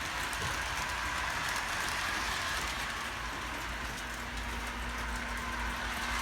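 Battery- or track-powered model train running steadily around its track, its small electric motor whirring with the wheels rattling over the rail joints.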